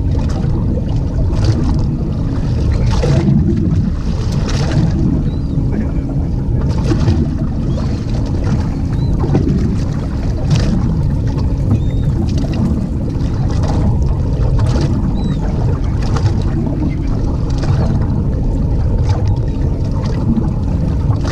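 Steady rush of wind buffeting the microphone, with water slapping and splashing against the hull of a small fishing boat on choppy water.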